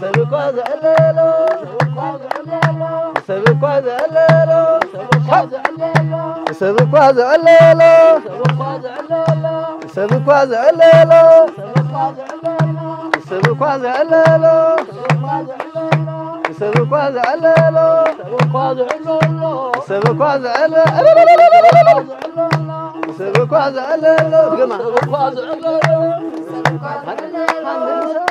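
Tigrinya traditional music: a steady, even low drum beat with a krar-style plucked melody and singing, the voices swelling louder three times.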